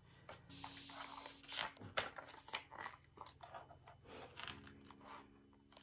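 Paper rustling and crinkling as a magazine-style photobook is handled, opened and its pages turned: a scatter of soft, irregular rustles and taps.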